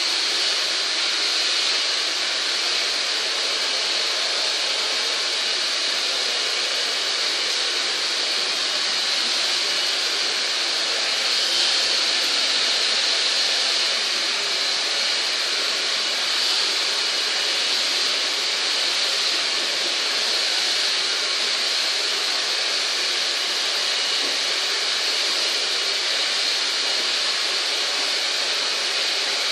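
Steady, unbroken rushing noise that holds at one level throughout, the sound of air blown by a running motor.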